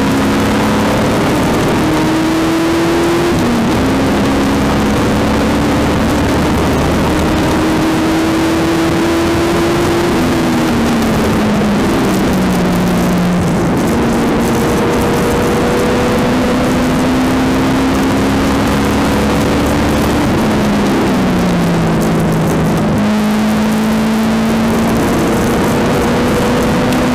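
Holden V8 Supercar's 5-litre V8 heard from inside the cabin at racing speed. The engine pitch climbs hard through the gears, then steps down twice as it downshifts under braking for corners, about ten seconds in and again a little past twenty seconds, before climbing again.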